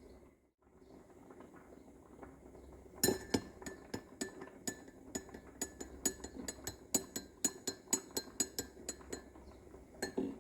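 A spoon clinking against a glass cup as tea is stirred. The clinks start about three seconds in and run at about four a second, each ringing briefly, over a faint steady hiss.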